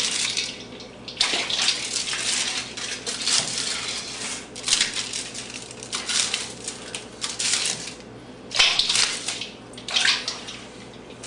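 Water running and splashing in irregular spells, with short pauses, as in hand-washing or rinsing at a sink.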